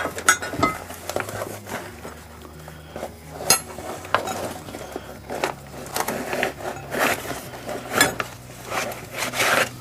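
Metal hand tools and outboard-motor parts clinking, knocking and scraping in an irregular run of sharp clicks, with a faint steady hum underneath.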